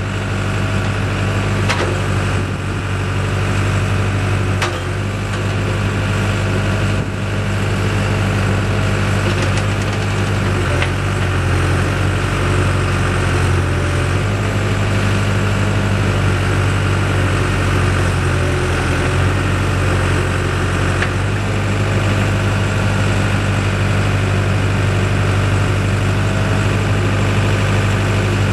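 Diesel engine of a Case 580M Series 2 backhoe loader running steadily, its note shifting slightly a few times, with a few light clicks.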